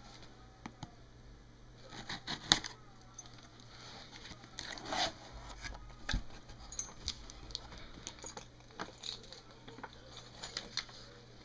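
Box and packaging being handled and opened to unpack a car amplifier: scattered clicks, rustles and crinkles, with a sharp click about two and a half seconds in and a dull thump about six seconds in.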